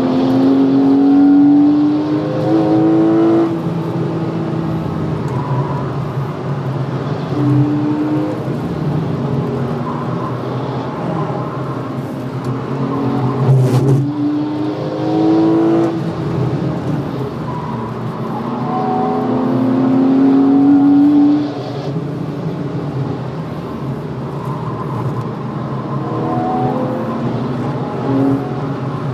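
Porsche 991 Carrera's 3.4-litre flat-six heard from inside the cabin, accelerating hard, its revs climbing in long rising sweeps and dropping back at each upshift, then easing off for corners, several times over.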